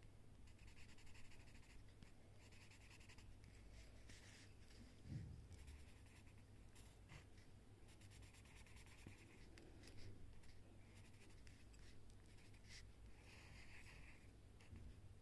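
Faint scratching of a pencil on paper, drawing and shading in repeated stretches of short strokes, with a soft low bump about five seconds in.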